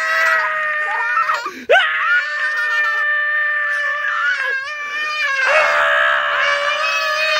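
A toddler screaming in play, in long high-pitched held screams. One ends about a second and a half in, another runs to about four and a half seconds, a short one follows, and a long scream begins about five and a half seconds in.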